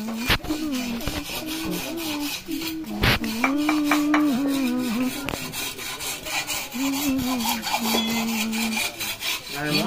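Knives scraping the green outer skin off bamboo tubes: a quick run of rasping strokes on the wood.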